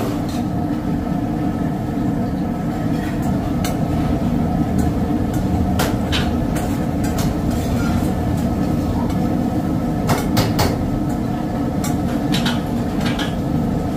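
Steady low rumble of commercial kitchen equipment, with scattered sharp clinks of a steel bowl knocking against a steel pot as cream is scraped out into it; a quick cluster of clinks comes about ten seconds in.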